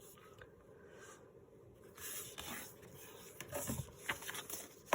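Sheets of paper being handled and stacked: soft rustling and sliding with a few light taps, starting about two seconds in.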